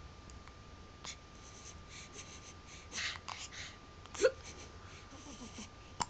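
Newborn baby hiccuping: a few short, sharp hiccups spaced well apart, the loudest about four seconds in.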